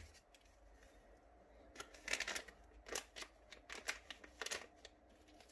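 Plastic anti-static bag crinkling as the Wi-Fi card inside it is handled, in a run of short rustling bursts over about three seconds.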